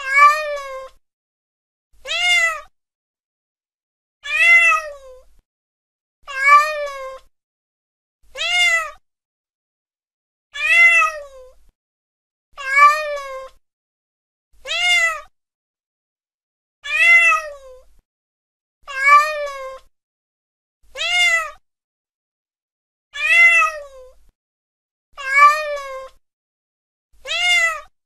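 A domestic cat meowing over and over, one meow about every two seconds. Each meow rises and then falls in pitch, with silence between calls.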